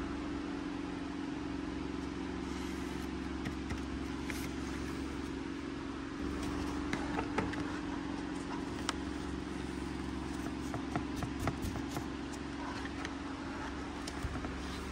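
Gloved fingers tapping and handling the cardboard and plastic packaging of a toy, a few scattered sharp taps, most in the second half. A steady low hum runs underneath.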